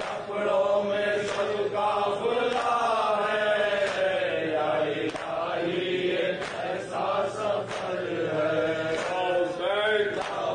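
Men's voices chanting an Urdu noha, a Shia lament, in a steady melodic recitation, with sharp hand strikes of matam chest-beating falling roughly every second or so.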